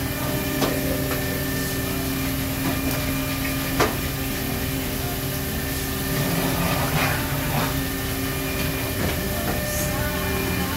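Fish-processing machinery running with a steady hum of several tones, with scattered clanks and knocks and one sharp knock about four seconds in.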